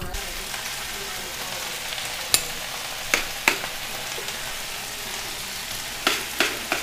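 Leafy greens sautéing in a hot pan, a steady sizzle, with several sharp knocks of cookware being handled.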